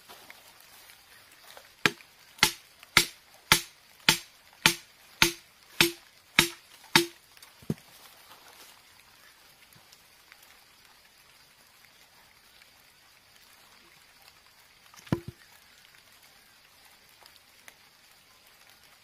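About ten sharp, evenly spaced knocks, roughly one every 0.6 s, each with a short hollow ring, as a bamboo stake set in a green bamboo tube is driven in; a single further knock comes about 15 seconds in.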